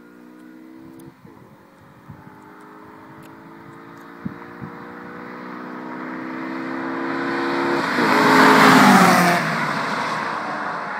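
Two cars accelerating hard down a straight toward the listener, engines climbing in pitch with a gear change about a second in and growing steadily louder. They pass about eight seconds in with a drop in pitch and then fade.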